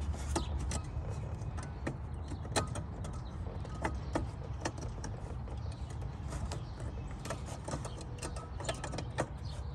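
Scattered small clicks and taps of hard plastic as a hand works an H7 halogen bulb into its spring-loaded socket behind the headlight housing, over a low steady rumble.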